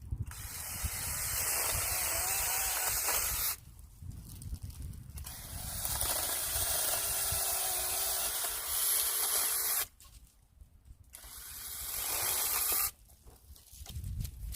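Battery-powered mini chainsaw running in three bursts, its chain whining steadily while it cuts through branches. Each run stops suddenly when the trigger is let go.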